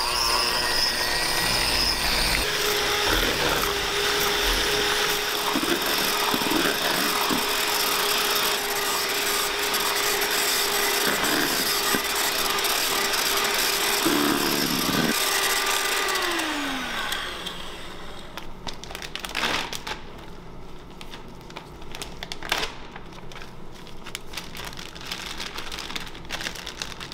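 Electric hand mixer running steadily, its wire beaters whipping cream in a stainless steel bowl to stiff peaks. About two-thirds of the way through it is switched off and its pitch falls as the motor winds down. Light clicks and plastic rustling follow.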